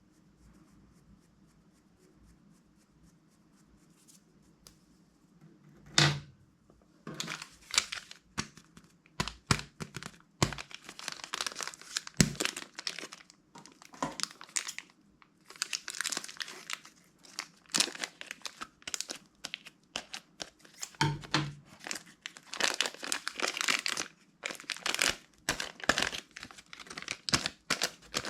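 Slime being squished, stretched and folded by hand, making repeated crinkly, crackling squishes in irregular bursts after a sharp knock a few seconds in.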